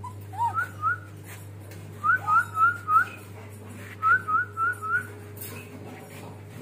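Whistling in short rising high notes, in quick groups: two, then four, then four, over a steady low hum.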